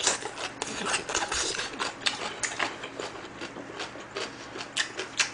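Close-miked chewing of a mouthful of food, with many quick, irregular wet mouth clicks and lip smacks.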